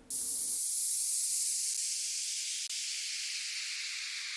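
Downlifter sound effect: a white-noise hiss that starts suddenly and slowly fades away.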